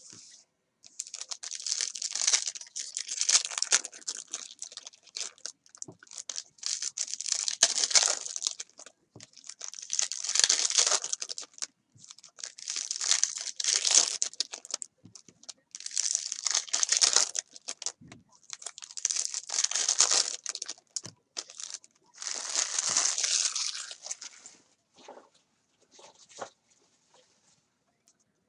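Trading-card pack wrappers being torn open and crinkled by hand, in about seven separate bursts of a second or two.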